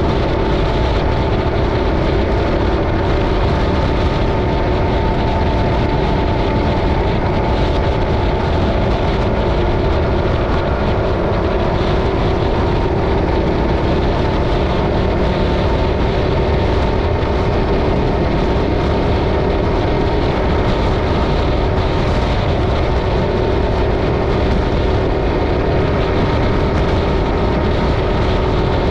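Yamaha Ténéré 700's 689 cc parallel-twin engine running at a steady cruising speed, with wind and road rush over the camera microphone. Pitch and loudness stay even, with no gear changes or revving.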